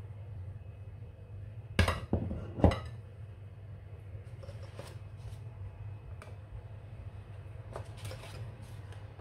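Two sharp clinking knocks, a little under a second apart, as a bowl is set down on a kitchen counter. Softer taps and rustles follow as dry lasagna sheets are handled and laid in a glass baking dish, over a steady low hum.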